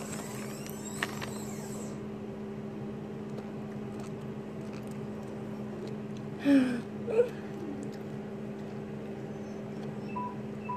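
Steady low electrical-sounding hum in a small room, broken about six and a half seconds in by two brief vocal sounds from a woman.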